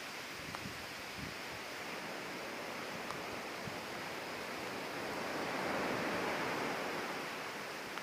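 Outdoor ambience: a steady rushing noise that swells for a couple of seconds about five seconds in and then eases, with a few faint ticks.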